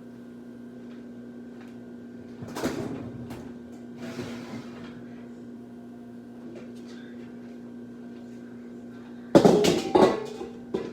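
Clattering as a kitchen door or lid is handled: a knock about two and a half seconds in, a short hiss a little later, then the loudest clatter near the end with a click just after, over a steady low electrical hum.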